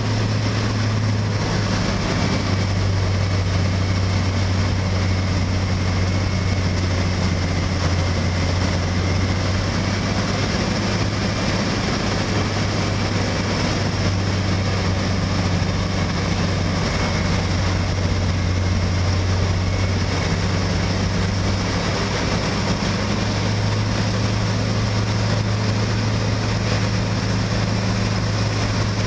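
Asphalt milling machine cutting the road and loading a dump truck: a steady, deep diesel engine drone under a constant rushing, grinding noise from the cutting drum and conveyor.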